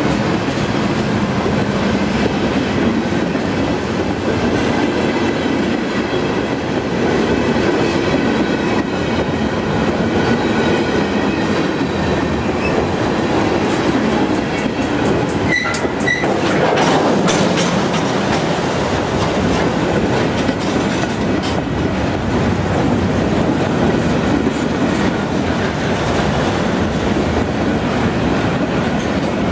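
Empty flatcars of a freight train rolling past close by: a steady rumble of steel wheels on rail, with wheels clacking over rail joints now and then.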